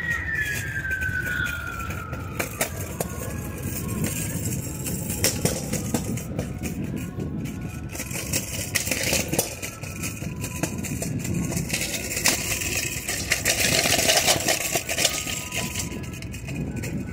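Street traffic noise with scattered clicks. Over the first few seconds a single high tone glides steadily down and fades away, and the noise swells near the end.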